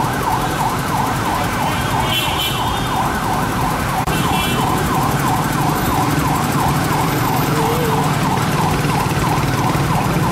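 Police escort siren in a fast yelp, its pitch sweeping up and down about three times a second, over the low rumble of vehicle engines.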